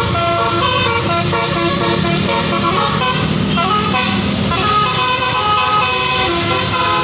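Indonesian tour bus's telolet horn, its several horn trumpets sounding together and stepping from note to note in a quick tune, over a steady low rumble.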